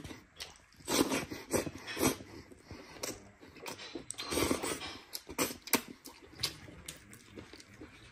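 Close-miked mouth sounds of eating: sucking, slurping and lip-smacking spicy sauce and meat off a bone held in the fingers, with chewing, in uneven wet bursts.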